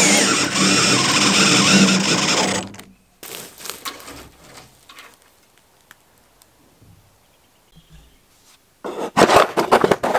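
Electric drill driving a screw through a steel door hinge into wood, its motor whining for about three seconds before it stops. Near the end, a short run of clattering as a hand rummages through a wooden drawer of metal latches.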